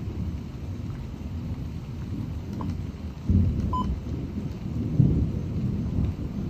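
Thunder rumbling over steady rain and pea-sized hail, the rumble swelling twice, about three and five seconds in.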